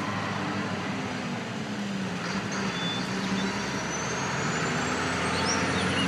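Heavy vehicle engine running steadily, with a faint rising whine in the second half.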